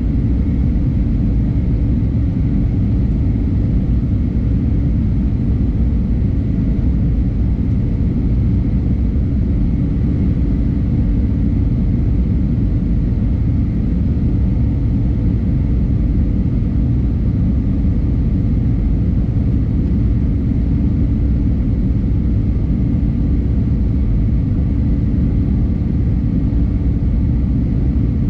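Steady cabin noise inside an Airbus A320neo with Pratt & Whitney PW1100G geared turbofans: a loud, even rumble of engines and airflow with a faint steady whine above it.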